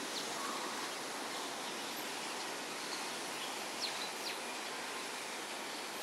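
Steady outdoor background noise with a few brief high bird chirps, two of them close together about four seconds in.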